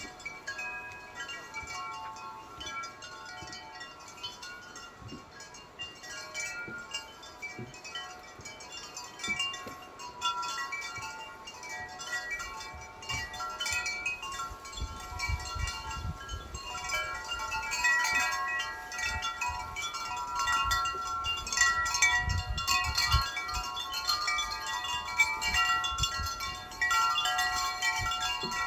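Wind chimes ringing as the wind moves them, many overlapping tones sounding at random, growing busier and louder about halfway through. Low gusts of wind rumble under the chimes in the second half.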